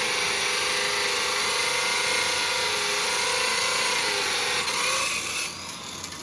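Electric hand drill running steadily, its whine wavering a little in pitch, drilling to fit a motorcycle number plate; it stops about five and a half seconds in.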